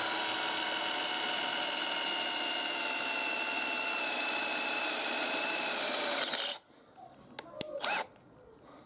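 DEKO 20 V cordless drill running steadily with a 5 mm metal drill bit cutting into 2 mm-thick iron tube, a whine whose pitch sags slightly under load. It stops suddenly about six and a half seconds in, followed by a few faint clicks.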